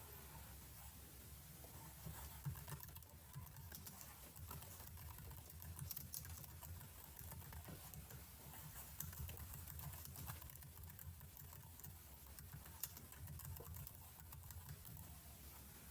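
Computer keyboard keys clicking faintly and irregularly, scattered single taps rather than steady typing, over a low steady hum.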